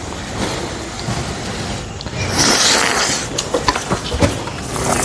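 Irregular clattering knocks and rustling, with louder rushes of noise, from a cow being held and handled in a barn stall.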